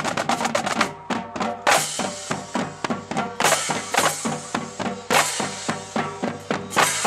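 Marching drumline playing a cadence: rapid snare and bass drum strokes with crash cymbals hitting together four times, about every second and a half.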